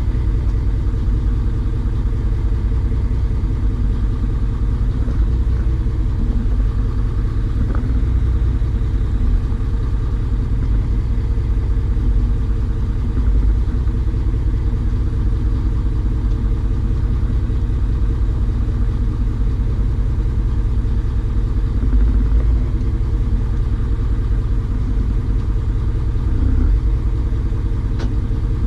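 An engine running steadily with a low, unbroken rumble, plus a couple of faint clicks, one about eight seconds in and one near the end.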